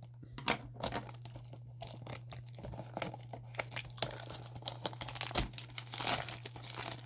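Clear plastic shrink wrap on a small cardboard blind box being snipped with scissors and then peeled and torn off by hand, crinkling and crackling irregularly throughout.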